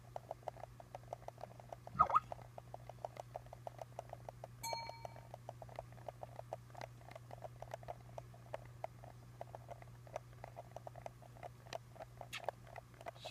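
Faint room tone with a low steady hum and a fast, faint ticking. There is a sharp click about two seconds in, and a short electronic notification chime from the computer about five seconds in.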